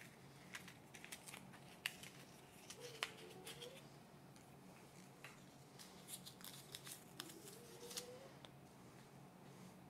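Faint, scattered crinkles and clicks of a Kinder Surprise egg's foil wrapper and plastic toy capsule being handled.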